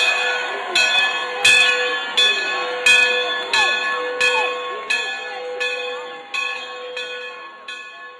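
A large bell rung over and over, about one strike every three quarters of a second, each stroke ringing on into the next. The ringing grows gradually fainter toward the end. This is most likely the Duke–UNC Victory Bell being rung.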